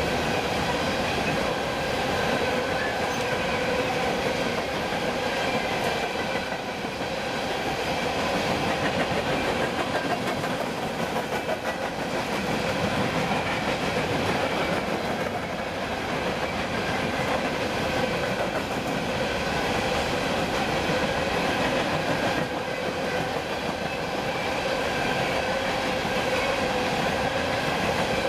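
Freight train cars rolling past on the rails: a continuous rumble and wheel clatter with a steady ringing tone over it.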